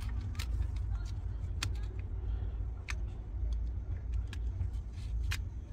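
A few scattered light clicks and taps of plastic seat trim and wiring being handled and fitted by hand, over a steady low rumble.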